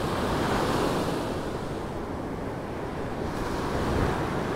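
Rough ocean surf breaking, a steady rushing wash, with wind buffeting the microphone.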